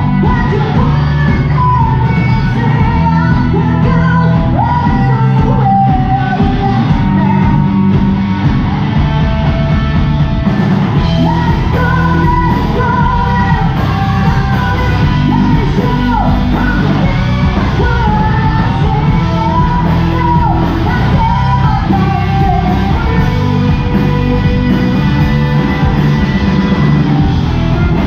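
A live rock band playing loud, with electric guitars, bass guitar and drums under a lead vocalist who sings and yells. The sung line rises and falls in pitch throughout over a steady, dense band sound.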